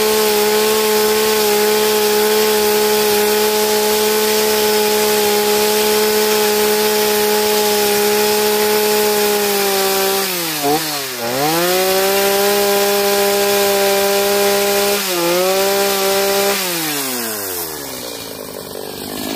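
Gas chainsaw running at high revs as the tip of the bar cuts and blends the wood of a carved skull face. The revs dip briefly and pick up again about halfway through and once more a few seconds later, then the throttle is let off near the end and the engine winds down.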